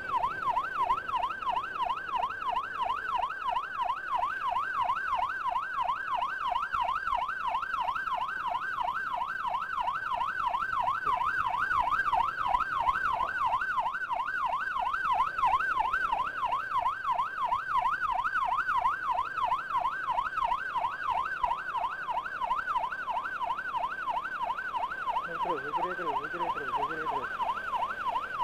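Electronic emergency siren on an ambulance escort, sounding a fast yelp that swings up and down between two pitches about three to four times a second without a break.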